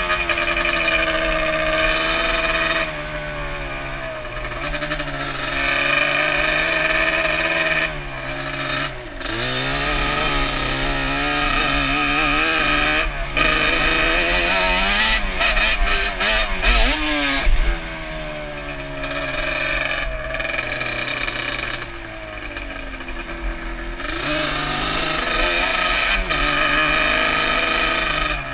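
Yamaha Banshee quad's two-stroke parallel-twin engine running hard under way, its pitch repeatedly climbing and then dropping as the throttle is worked.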